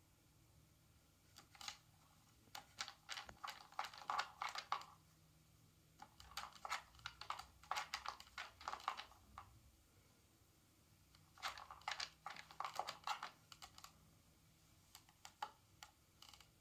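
Quick bursts of light plastic clicking and rattling, in about four spells with pauses between, as cats paw and nose at a plastic Trixie Dog Activity treat-puzzle tower.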